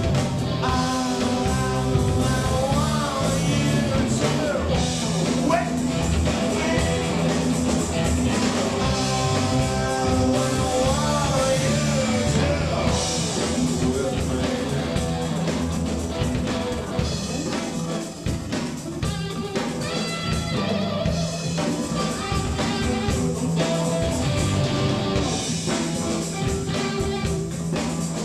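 A song performed by a singer over accompanying instruments, with sung lines about a second in and again around nine to twelve seconds in.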